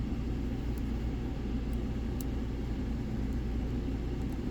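Steady low background rumble, with a few faint light ticks of a hook pick working the pins of a Sargent Signature LFIC lock core under tension.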